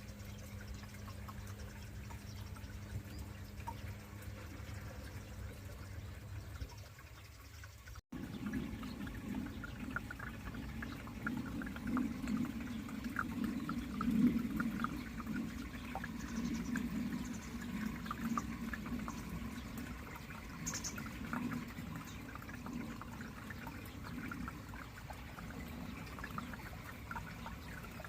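A steady low hum for about eight seconds; then, after an abrupt cut, water pouring and trickling steadily into the running aquarium, with many small splashes.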